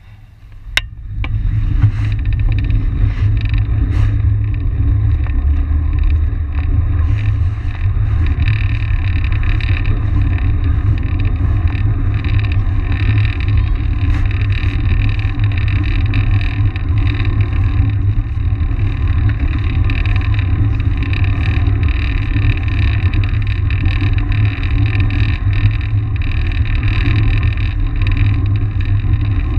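Wind buffeting the microphone of a camera on a moving track bike, a steady heavy rumble that comes up about a second in as the bike gets up to speed and holds. A sharp click comes just before it.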